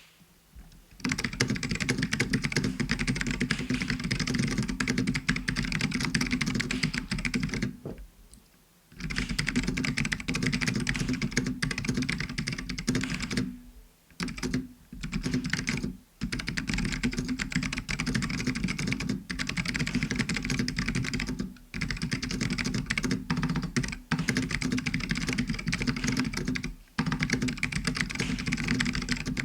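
Continuous typing on a Matias Tactile Pro mechanical keyboard, rapid clicky keystrokes in fast runs. It starts about a second in and breaks off briefly a few times, with the longest pause about a third of the way through.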